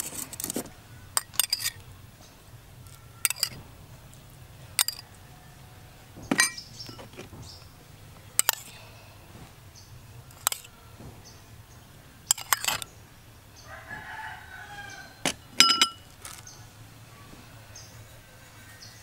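Metal spoon clinking sharply against a small ceramic bowl again and again as sauce and sugar are scraped out of it into a mixing bowl. A rooster crows once, about three-quarters of the way through.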